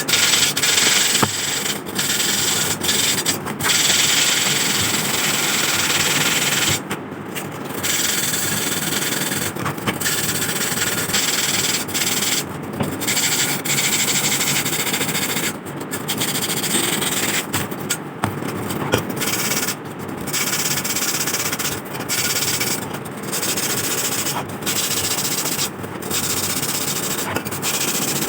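Emery paper rubbing over the metal parts of an old lamp by hand: a rasping sanding sound in long stretches, broken by short pauses every second or few.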